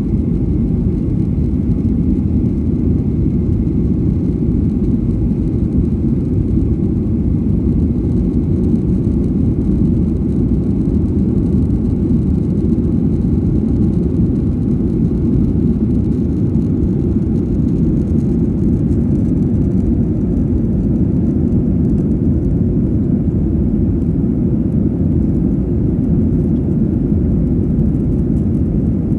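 Steady low cabin noise of an airliner in flight, the engines and rushing air heard from inside the cabin.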